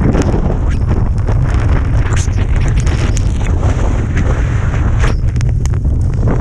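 Strong wind buffeting the microphone in a blizzard, a steady low rumble with hiss, broken by scattered sharp clicks and scrapes.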